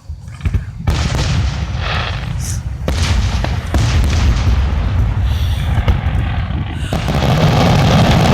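Aerial fireworks going off in rapid succession: a dense run of booms and crackles that starts about a second in and grows louder near the end.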